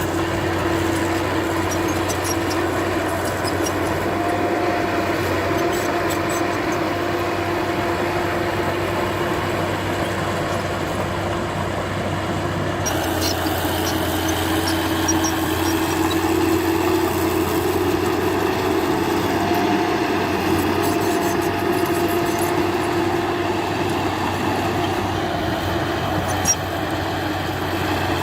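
Heavy diesel engine of earthmoving machinery running steadily, with slight rises and falls in pitch and one short sharp knock near the end.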